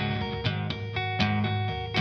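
Background music led by guitar, with plucked notes struck at a regular pace.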